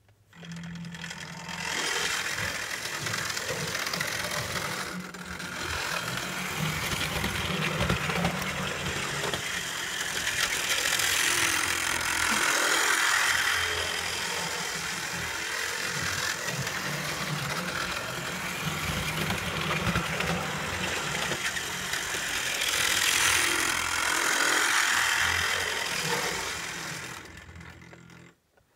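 Model train running on its layout: the locomotive's small electric motor whirring and the wheels rattling over the track. It starts suddenly, grows louder twice as the train passes close by, and dies away near the end.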